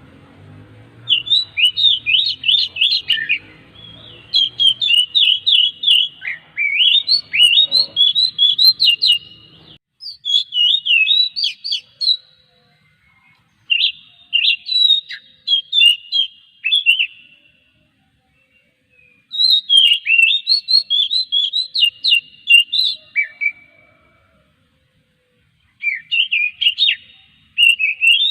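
Oriental magpie-robin (kacer) singing in fast, varied phrases of high whistles and chirps, in five bursts separated by pauses of one to two seconds. A faint low hum lies under the song for the first ten seconds.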